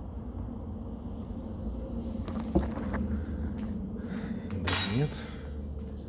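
A sharp clink of hard metal or glass about two and a half seconds in, then a short scraping clatter with a brief rising note near five seconds, over a steady low hum.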